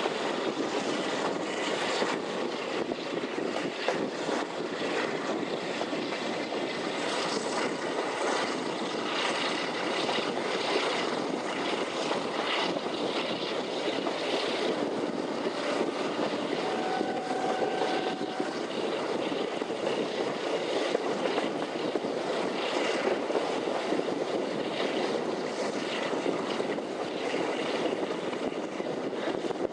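Heritage diesel locomotive working hard under load at the head of a moving train, heard from an open coach window: a steady engine drone mixed with running noise from the moving train.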